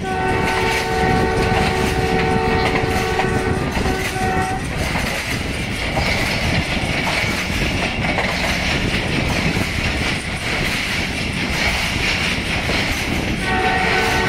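ZCU-20 diesel-electric locomotive's horn sounding a long chord of about four and a half seconds, with a brief dip near its end, over the steady rumble and clatter of the passenger coaches on the track. The horn sounds again near the end.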